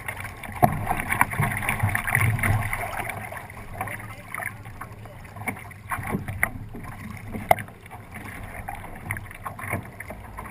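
Water rushing along the hull of a 29er skiff under sail, louder in the first few seconds, with wind on the microphone. A couple of sharp knocks from the boat's fittings, one early and one about seven and a half seconds in.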